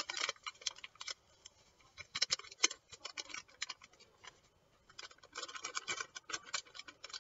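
Paper yeast packet crinkling and rustling as it is shaken and squeezed empty over a stainless steel bowl, with faint irregular ticks and crackles that thicken about five seconds in.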